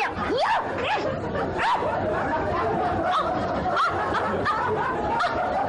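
Sustained laughter from many people at once, a sitcom audience laugh track, running steadily and evenly.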